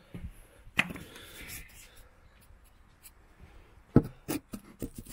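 Handling noise on the camera's microphone: rubbing and scattered light knocks, the loudest a sharp knock about four seconds in with a few smaller ones after, as the camera is set down on the wooden trailer deck.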